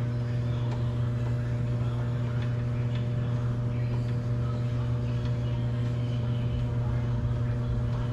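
Steady low machine hum with a few faint, scattered clicks, likely from hand-tool work at the door.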